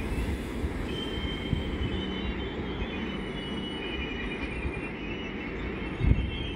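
Indian Railways express coaches rolling past on the rails: a steady low rumble of wheels with a faint high-pitched wheel squeal above it, and one louder low thump about six seconds in.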